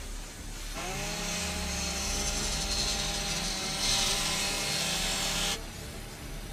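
A motor revs up and then runs steadily at high speed, with a burst of grinding hiss in the middle. It cuts off suddenly about a second before the end.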